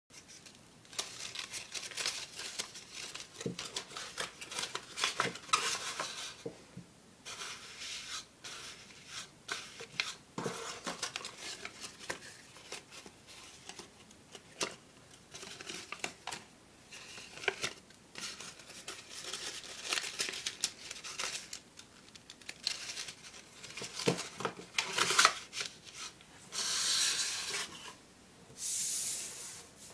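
Folded paper origami toy being handled, its pleats rustling and crackling in many short snaps as hands open it out like a fan and close it again. Near the end there are two longer papery swishes.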